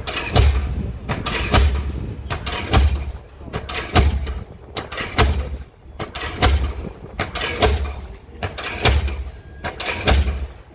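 Diesel pile hammer running and driving a pile: a steady train of heavy blows, about one every second and a bit, each a deep boom with a sharp metallic knock.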